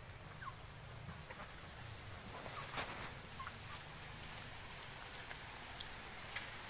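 Faint chickens in a yard: a few short, scattered calls over a steady high hiss, with a sharp click almost three seconds in.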